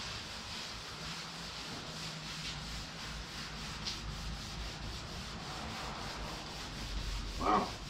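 SOS steel-wool soap pad scrubbing across a painted car hood, scouring off the top paint layer softened by oven cleaner, a steady scratchy rubbing. A short pitched sound near the end is the loudest moment.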